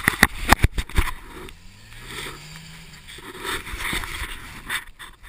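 A few sharp knocks and scrapes in the first second, then a Jeep's engine revving at a distance, its pitch rising slowly over a couple of seconds and again briefly, as it works to pull out of deep mud.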